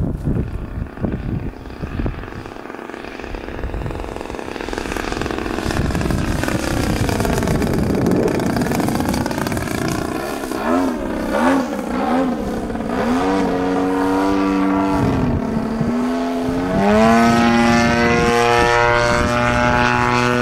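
CRRC Pro GP50R 50cc two-stroke petrol engine on a radio-control plane in flight, its pitch swelling and falling as the plane passes and the throttle changes. About halfway through there are three quick blips, then the engine holds a steady high pitch, dips briefly, and climbs back to a steady high pitch near the end. Wind noise on the microphone in the first few seconds.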